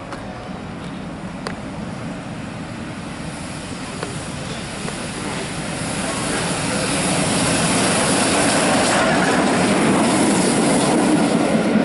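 Flying Scotsman, an LNER A3 Pacific steam locomotive, running through at speed: a rushing noise that grows louder from about halfway as it draws level and passes close by.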